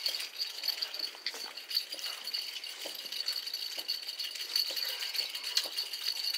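A steady high-pitched rattling buzz, with light clicks and scrapes of fingers mixing rice on steel plates.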